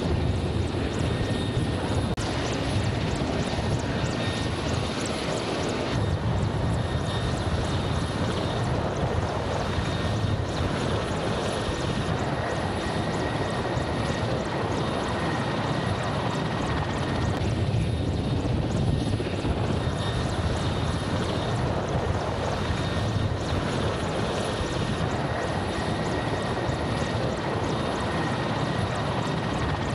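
Mil Mi-28N attack helicopter running: steady rotor and twin turboshaft engine noise, with a faint, steady high turbine whine over it.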